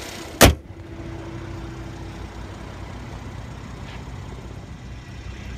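The hood of a 2015 Mercedes-Benz SL400 slammed shut once, a single loud thud about half a second in, followed by a steady low rumble.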